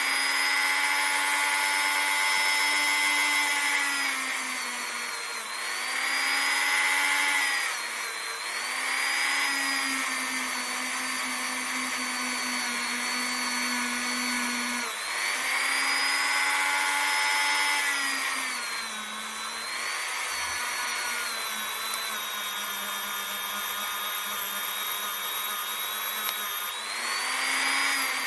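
Motor-driven wire brush whining steadily as it cleans and polishes a revolver's steel hammer. Its pitch sags and recovers several times as the brush is pressed onto the part and eased off.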